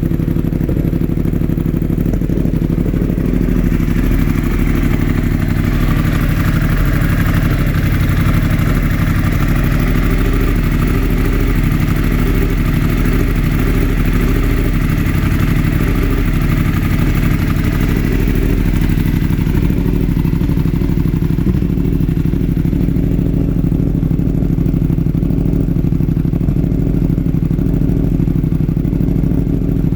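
A 2016 Yamaha R1's inline-four engine running steadily at idle with a constant misfire on cylinder 4, left after a crash and not cured by swapping its ignition coil with cylinder 1's.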